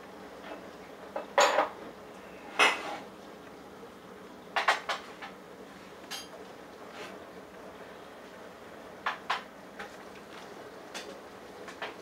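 Bosch Logixx WAS32461GB front-loading washing machine in its main wash, the drum turning a small load (a dressing gown) through the water. A steady swishing runs under sharp clinks and knocks that come in small clusters every few seconds as the load tumbles.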